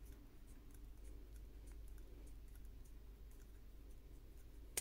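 Faint clicks and ticks of hard plastic parts of a binocular smartphone adapter being handled and fitted together, with one sharper click near the end, over a low steady hum.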